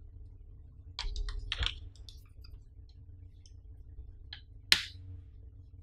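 Clicks and rubbing as a Samsung Galaxy S8 is fitted into a battery case: a quick cluster of clicks about a second in, a few light ticks, then one sharp snap near the end, the loudest, as the phone seats in the case. A steady low hum runs underneath.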